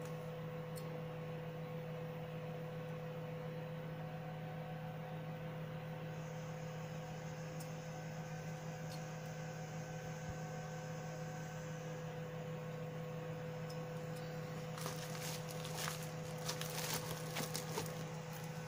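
Steady low electrical hum throughout. Near the end comes a few seconds of crackling rustle as the graphics card is set down into its anti-static foam packaging.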